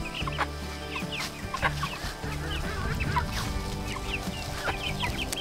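Pullets clucking and chirping in many short calls scattered throughout, with background music held underneath.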